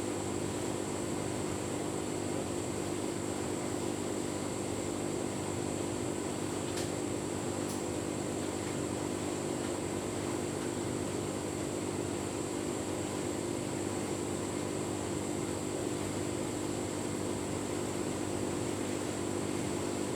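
Tumble dryer running steadily on a cottons cycle with a full load of bedding: a constant motor and fan hum, with a couple of faint ticks about seven seconds in.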